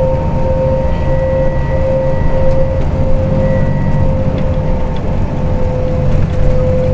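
Inside a LiAZ 5292 city bus moving at road speed: a steady rumble of engine and tyres with a constant high whine from the bus's drivetrain.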